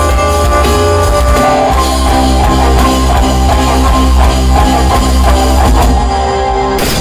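Rock band playing live through a stage sound system: electric guitar and drum kit over heavy bass, with held notes. Near the end a sudden loud burst cuts across the music.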